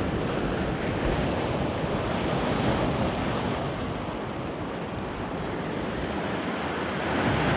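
Sea surf washing and breaking against shoreline rocks, with wind buffeting the microphone. The wash swells and eases, lower in the middle and rising again near the end.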